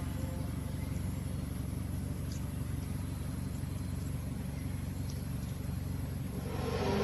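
Steady low rumbling drone with a hum of several low tones, with a few faint ticks; near the end a louder hiss swells in.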